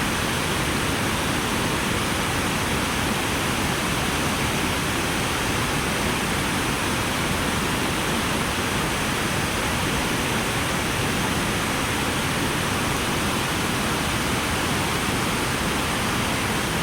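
Steady, even rushing of sea surf.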